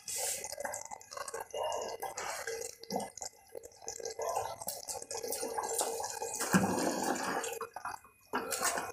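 Chicken curry bubbling at a simmer in an aluminium pressure cooker pan on a gas stove: a soft, irregular bubbling and popping. Near the end a ladle dips in and stirs, a little louder.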